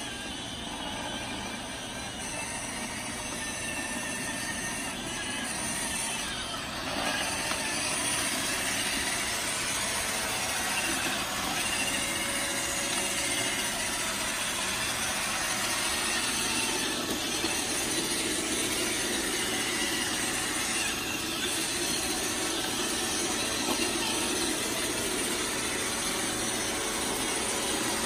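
Robot vacuum cleaner running over carpet, a steady whirring hum of motor and brushes that gets a little louder about seven seconds in.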